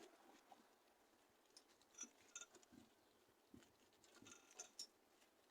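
Near silence with a few faint clicks and light rustles, in two short clusters about two seconds in and again near the end, like small parts being handled.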